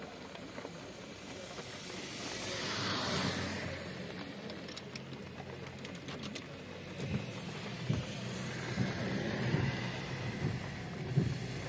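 A steady hiss of heavy rain and tyres on a wet road. The hiss swells about two to four seconds in, then low rumbling bumps come and go in the second half.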